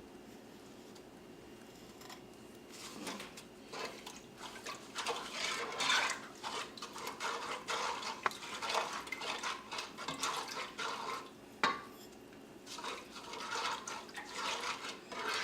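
A spoon scraping and clinking against a saucepan holding orange juice and brown sugar, in irregular strokes that begin after a couple of seconds. Two sharper knocks come about halfway through and again about three-quarters of the way through.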